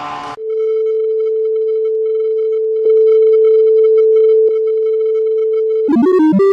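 A steady, mid-pitched electronic beep tone held for about five and a half seconds, stepping up in loudness about halfway through. Near the end it breaks into rapid, choppy stutters of pitched sound.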